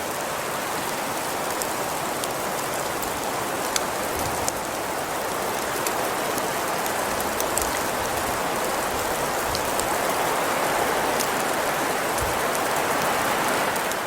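Steady hiss of falling precipitation on surfaces, with scattered faint ticks of drops or pellets, swelling a little toward the end.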